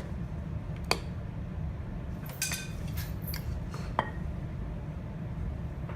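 Spoon clinking against kitchenware as cake batter is spooned into a cupcake pan: one sharp clink about a second in, a quick run of clinks around the middle, and another at about four seconds, over a steady low hum.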